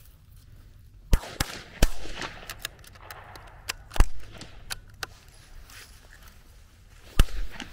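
.22LR rifle shots at uneven intervals: a quick cluster of three in the first two seconds, then single louder shots about four and seven seconds in, with fainter cracks between.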